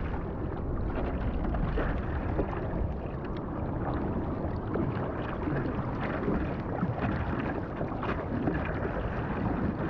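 Seawater splashing and rushing against a surfboard as a surfer paddles it prone, his hands stroking through the water, with wind on the microphone.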